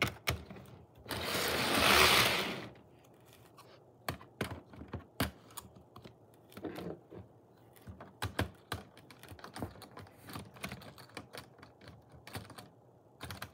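Irregular plastic clicks and knocks of model railway coaches and engines being handled, shifted and coupled on the track, with a loud rustle about a second in.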